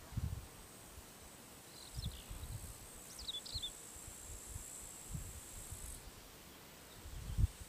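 Summer meadow ambience: crickets trilling steadily in a high band that drops out and comes back a few times, with a couple of short bird chirps about two and three seconds in. Intermittent low rumbles sit underneath, loudest near the end.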